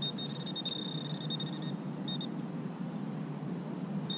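Handheld pinpointer probe sounding a steady high-pitched tone for about a second and a half, then a short beep about two seconds in: it is picking up a metal target in the dig hole.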